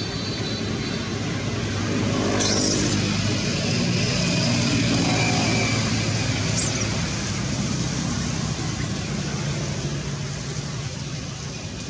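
A motor vehicle's engine running steadily, with two brief high-pitched sounds about two and a half and six and a half seconds in.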